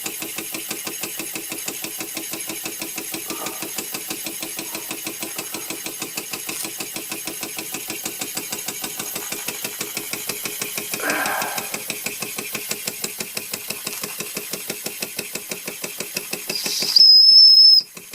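1926 Bing 10/12/2 toy steam engine running under steam, its exhaust chuffing in a quick, even beat. Near the end its steam whistle blows one loud, steady, high note for about a second.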